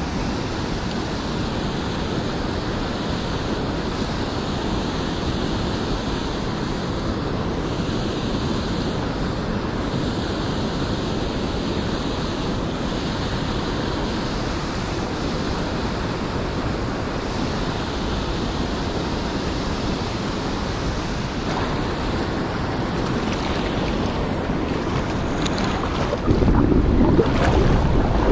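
River water running steadily over a shallow gravel riffle, with wind buffeting the microphone. About two seconds before the end the sound turns louder and deeper.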